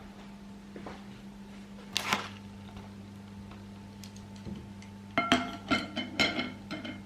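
A steady low hum, a short clatter about two seconds in, then a quick run of sharp, ringing clinks like dishes or glassware being handled.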